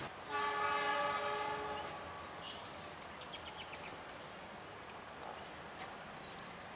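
Diesel locomotive horn sounding one blast of about a second and a half, the signal that the train is about to depart.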